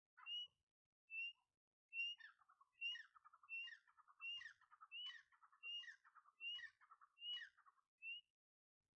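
A bird calling: a short, high whistled note repeated about once every 0.7 s, with a fast twittering chatter filling the gaps from about two seconds in. The calling stops near the end.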